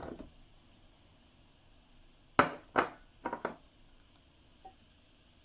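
Four sharp knocks in about a second, with a faint one after, from glass bowls handled and bumping together as sliced white onion is tipped from a small glass bowl onto the salad.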